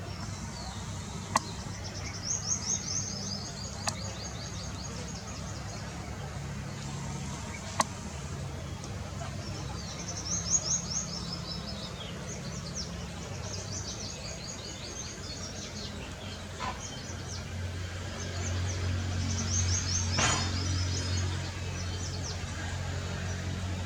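A small songbird singing several short, high-pitched trilled phrases, over a steady low background rumble that swells in the second half; a few sharp clicks are heard along the way.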